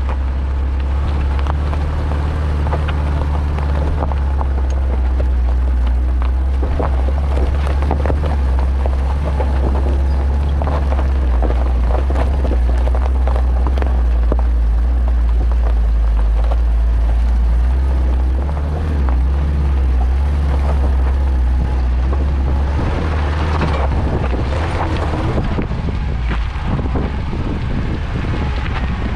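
VW T3 Syncro van driving slowly over loose rock, its engine a steady low drone, with gravel crunching and crackling under the tyres. Wind rushes over the microphone, stronger near the end.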